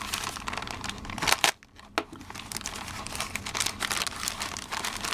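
Silver metallized plastic shipping bag crinkling as it is opened and pulled back by hand. There is a louder burst of crinkling about a second and a half in, a brief lull, then steady crackling again.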